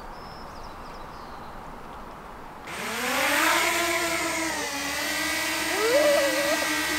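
Small quadcopter drone's motors spinning up suddenly, about two and a half seconds in, with a whine that rises in pitch and then holds steady as it hovers.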